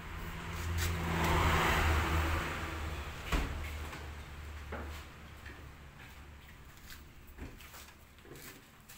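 An engine running with a low steady hum that swells about a second in and dies away after about five seconds, with a single knock about three seconds in.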